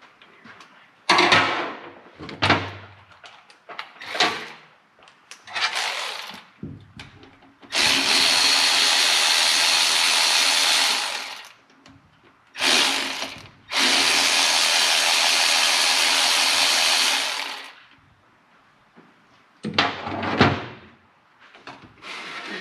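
Handheld power tool running in bursts as it spins engine bolts out. There are several short bursts, then two long steady runs of about three seconds each with a short one between, then a few short bursts near the end.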